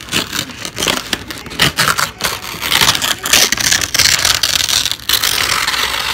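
A sheet of paper rustled, crinkled and handled right up against a phone microphone as an ASMR trigger: a loud, continuous crackling rustle with many sharp crinkles, densest in the middle.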